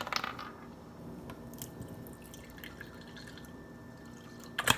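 Lemon juice dripping and trickling into a measuring spoon, with faint small ticks and a sharp click near the end.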